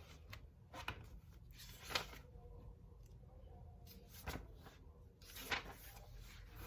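A few scattered soft taps and rustles over a low steady hum.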